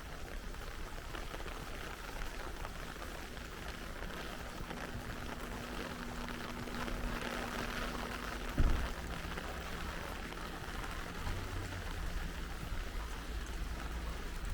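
Steady rain falling, a constant hiss over a low rumble, with a single loud thump about two-thirds of the way through.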